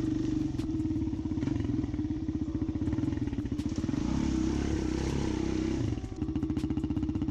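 A small off-road vehicle engine, an ATV's, running steadily at low speed with a rapid, even firing pulse. Its note shifts midway and dips briefly about six seconds in, then settles back.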